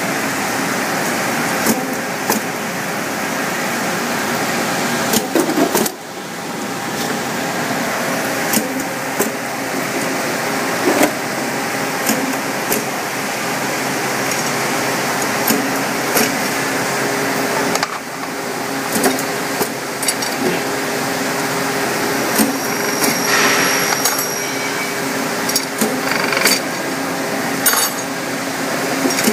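Reed Rico B112 two-die cylindrical thread rolling machine running with a steady hum, with frequent metallic clicks and knocks as the dies in-feed roll 1/2-20 threads into 4140 steel bar stock.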